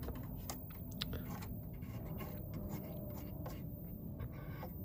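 Small irregular clicks, scrapes and rustles of fingers handling wires and pushing a plug-in connector down onto a CRT television's circuit board: reseating the loose degauss coil connector to try to cure a no-degauss fault.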